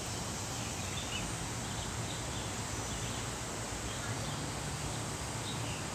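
Outdoor ambience: a steady background rush with a low hum, and faint short bird chirps every second or so.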